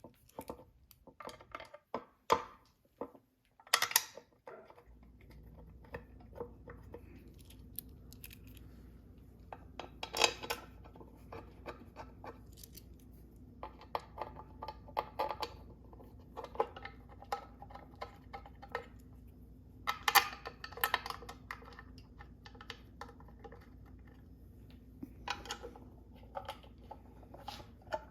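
Hand tools and metal engine parts clicking and clinking in irregular bursts as the engine's front end is worked on, over a steady low hum that starts about five seconds in.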